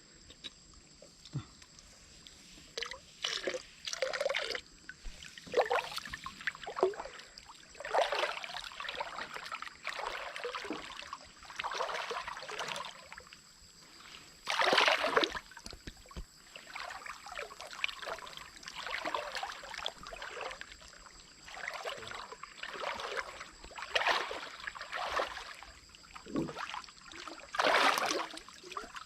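Water splashing and sloshing in irregular bursts, some a fraction of a second and some about a second long, the loudest about halfway through and near the end.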